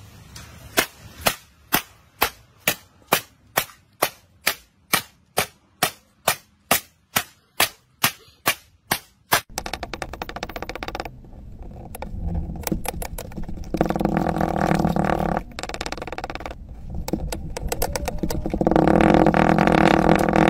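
Aluminium drink cans being crushed under a cinder block: about twenty sharp crunching impacts in quick, even succession. After that comes a steady gritty crunching of kinetic sand cubes pressed down in a glass with a wooden pestle, louder in two long stretches.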